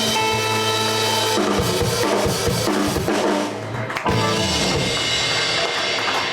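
Live blues band playing: the band holds notes for about a second and a half, then the drum kit comes forward with a run of drum hits under the other instruments.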